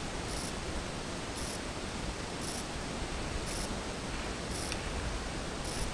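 Steady outdoor background noise with no distinct event, and a faint high hiss that pulses about once a second.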